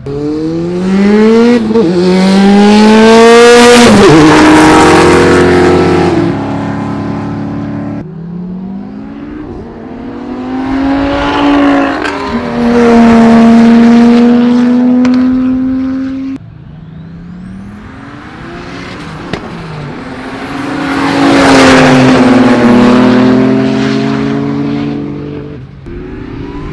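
Cars accelerating hard at full throttle in roll races. The engine pitch climbs as each one pulls and drops away as it passes. There are three separate runs, each cut off abruptly.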